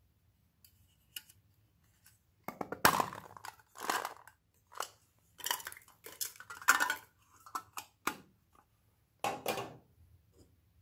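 Irregular clattering and rattling as small round beads are shaken out of a box and drop into a glass bowl of slime, with knocks from handling the box. The bursts come in a run starting a couple of seconds in and stop shortly before the end.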